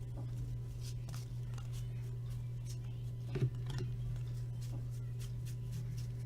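Trading cards being handled and sorted: faint light clicks and rustles, with a small knock about three and a half seconds in, over a steady low hum.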